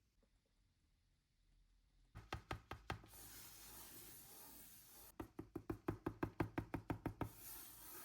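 Hands unboxing a LEGO set: a run of quick knocks about two seconds in, a stretch of rustling, then a longer, louder run of rapid knocks at about seven a second.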